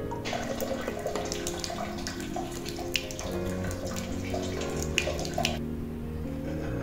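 Water running from a tap and splashing into a sink, over soft background music. The running water starts just after the beginning and cuts off about a second before the end.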